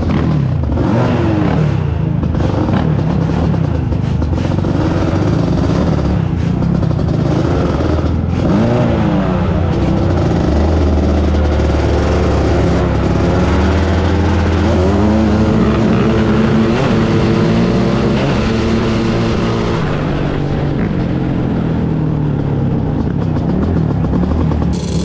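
1989 Suzuki LT500R Quadzilla's 500 cc two-stroke single through a full FMF Gold Series exhaust, at full throttle on a drag run: the revs climb and drop with each upshift over the first several seconds, hold steady, then fall away near the end as it slows.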